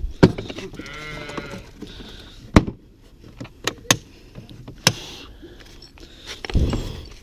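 Hand tools being handled and put away: several sharp metallic clinks and knocks, a short squeal about a second in, and a low thud near the end.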